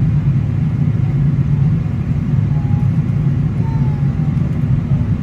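Steady low rumble of a Boeing 777-300ER airliner heard inside the cabin, an unbroken engine and airflow drone at an even level.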